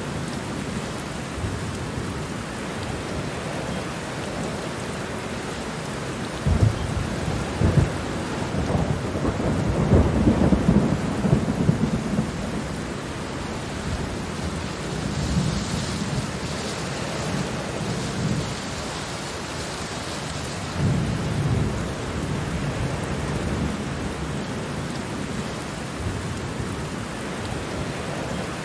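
Steady rain falling, with rolls of distant thunder rumbling underneath: one builds about six seconds in and is loudest around ten to twelve seconds in, and a shorter one comes about twenty-one seconds in.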